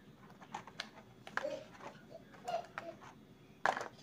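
Scattered clicks and light knocks of a hard plastic toy robot being handled and set down on a plastic bag, with a louder clatter near the end.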